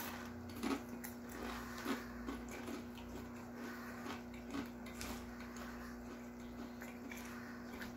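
Crinkle-cut potato chips crunching as two people chew them: irregular faint crunches, a few louder ones in the first half, thinning out later.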